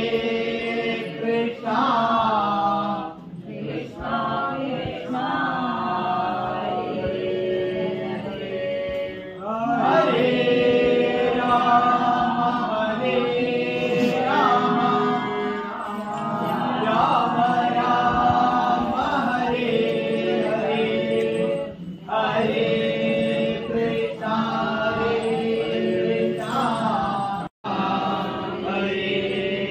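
Devotional chanting sung to music, in phrases a few seconds long, with a brief break near the end.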